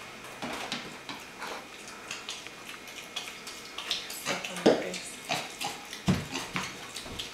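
A young pig's irregular small clicks and wet smacking noises as it chews cheese treats and steps about on a tile floor, with a couple of louder knocks about halfway and near the end.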